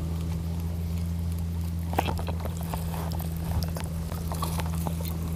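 Steady low drone of a distant boat engine over shallow sea water, with small splashes and clicks from about two seconds in.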